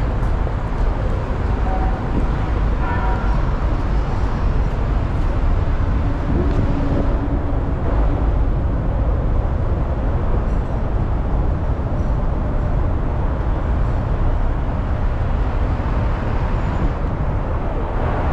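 Steady road traffic noise at a busy city intersection: a constant low rumble of passing cars and trucks.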